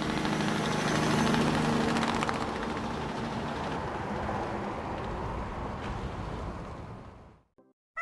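A motor vehicle's engine running with a broad rumble, loudest about a second in, then slowly fading away until it stops about seven seconds in.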